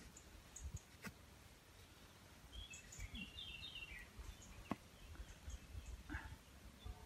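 Faint woodland ambience with a small bird giving a quick run of chirps about three seconds in, a couple of soft clicks, and a brief scrape of a knife blade on a wooden stick near the end.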